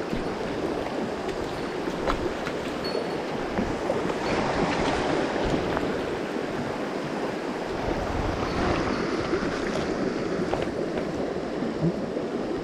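Rushing river water, a fast current running over stones, the river running high after rain. A few small knocks sound close by, the sharpest near the end.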